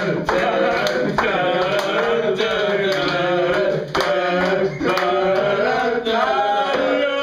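A group of men singing together loudly, with scattered hand claps.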